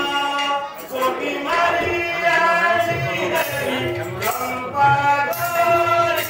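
Music: a male voice singing held, gliding notes over accompaniment, with low drum beats coming in about three seconds in.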